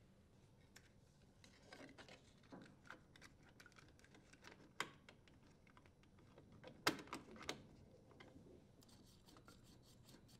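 Faint handling noises: light clicks, taps and rustles as hands handle a paper warning label. The sharpest taps come about five and seven seconds in.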